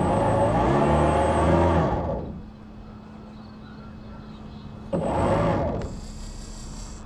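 Radio-controlled model boat's motor throttled up twice: a loud burst of about two seconds, then a shorter one of about a second near the end, each with a high whine and a pitch that rises and falls.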